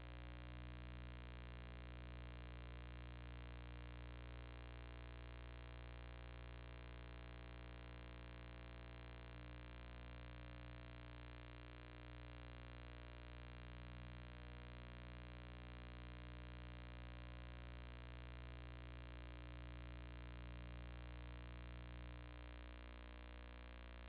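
Faint steady electrical hum with a buzz of many steady overtones and a light hiss, unchanging throughout; no heartbeat or other event.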